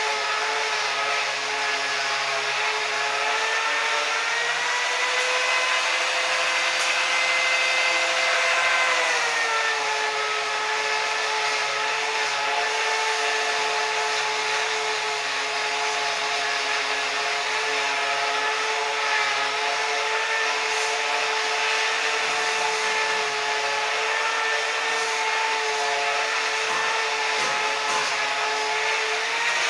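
Angle grinder with a buffing pad running steadily, a continuous motor whine as it buffs stainless steel. Its pitch rises a little about four seconds in and drops back about nine seconds in, then holds steady.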